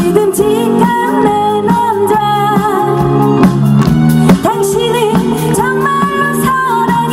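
A woman singing a Korean trot song into a microphone with a live band: electric guitar and drum kit keeping a steady beat.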